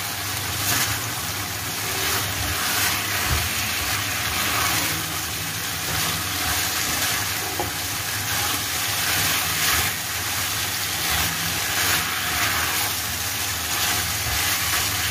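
Beef and bitter melon sizzling in a nonstick frying pan as they are stirred and tossed with a plastic spatula. The spatula strokes scrape roughly once a second over a steady hiss.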